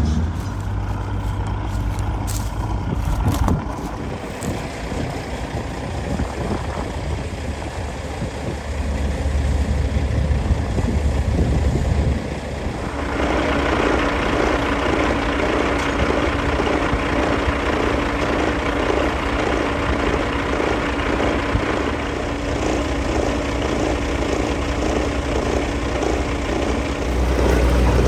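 Heavy harvest-machinery engine running with a deep rumble. About halfway through it gives way to a steadier, higher machine hum with a repeating rattle over it.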